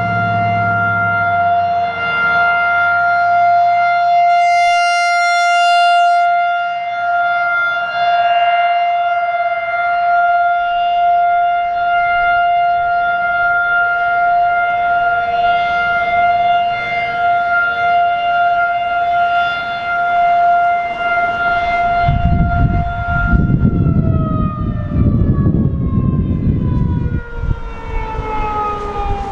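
Federal Signal 2001 rotating outdoor warning siren sounding a steady single tone that swells and fades slightly as it turns. About two-thirds of the way through it shuts off and winds down, the pitch sliding slowly lower as the rotor coasts. A low rumbling noise comes in just before the wind-down.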